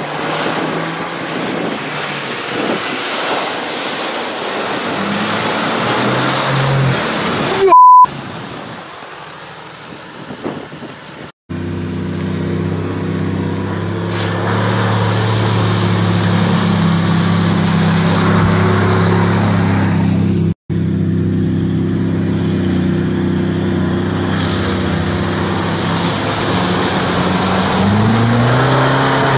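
Off-road 4x4 engines running under load through muddy ruts and puddles, across a series of cut-together clips, with a short loud beep about eight seconds in. Near the end a white Toyota Land Cruiser 70's engine revs up as it ploughs through a muddy puddle.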